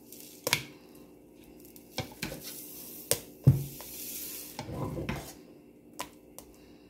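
A utensil stirring and mashing a thick white mixture in a bowl, with scraping and several sharp knocks against the bowl's side; the loudest knock comes about halfway through.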